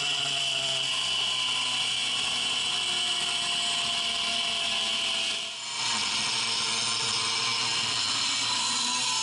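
Electric angle grinder running at speed and grinding into a flat steel bar: a steady high motor whine over the hiss of the disc on the metal. The sound dips briefly about five and a half seconds in, then the grinding carries on.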